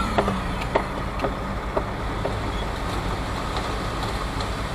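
Concrete mixer truck's diesel engine idling steadily. A high whine cuts out just as it begins, followed by a run of light clicks about half a second apart over the first two seconds or so.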